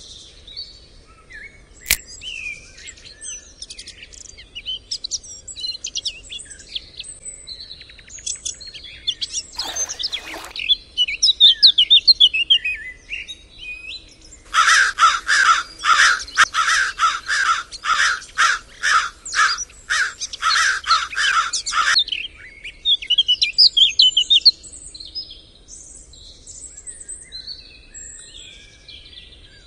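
Park birdsong: many birds chirping and calling in the trees. Past the middle, a loud rapid run of repeated calls, about four a second, lasts about seven seconds and stops abruptly. A brief rushing noise comes about ten seconds in.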